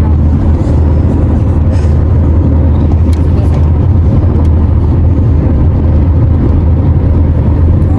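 Steady, loud low rumble of a moving car's road and engine noise.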